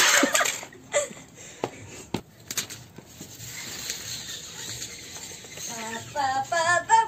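A few sharp knocks, then a light scraping hiss as a tape measure is run out along brick paving, and a voice in the last second or so.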